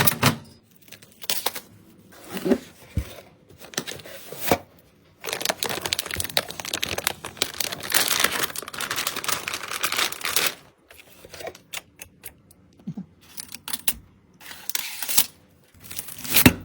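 Packaging being handled: scattered clicks and knocks, then about five seconds of continuous crinkling and tearing, followed by more intermittent rustles and a short loud burst near the end.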